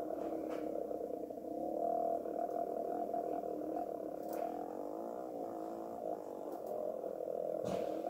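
150cc dirt bike engine running under throttle, its pitch rising and falling as the rider works the revs around the track, with a brief knock near the end.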